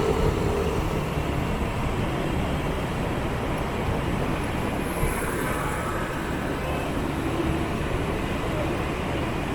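Motorbike and scooter traffic on a city street, heard from a moving motorbike: a steady mix of small engines and road noise.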